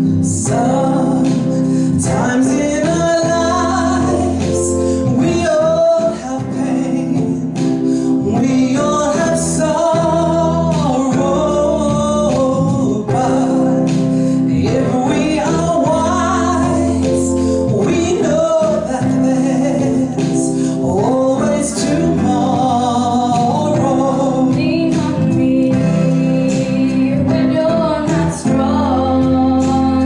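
Women singing a song live into handheld microphones over instrumental accompaniment.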